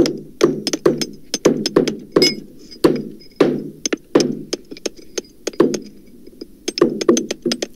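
Hammer blows struck irregularly, several a second and overlapping, each with a short dull ring; the recording has been pitched down so the blows sound deeper than normal. There is a brief lull about six seconds in.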